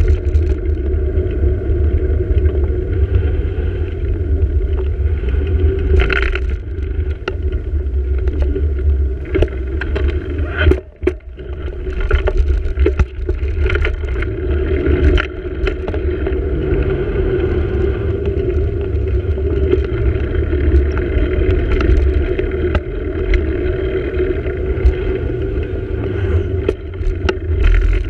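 Wind rumbling on the microphone of a bicycle-mounted camera while riding, mixed with tyre and road noise, with a few short knocks. The sound dips briefly about eleven seconds in.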